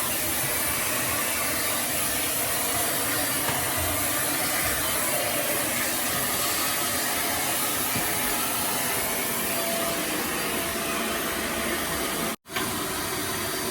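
Dyson Light Ball Multifloor upright vacuum cleaner running steadily, a constant rushing motor-and-airflow noise, broken by a split-second gap near the end.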